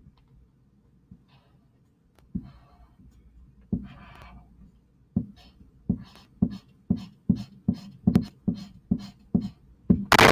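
Pink highlighter scrubbing back and forth on computer paper as a letter is coloured in: a few scattered strokes at first, then a steady run of about three strokes a second. A sharp, louder clack comes near the end.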